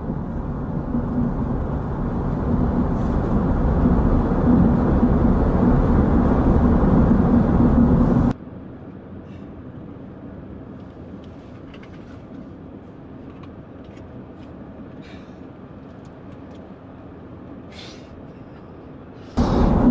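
Low road and engine rumble inside a moving car's cabin, growing louder over the first eight seconds. Then a sudden cut to a quieter steady hum with scattered small clicks.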